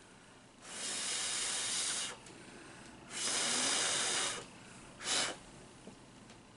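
A person drawing on a vape mod and blowing out the vapour: two long breathy hisses of over a second each, then a short puff.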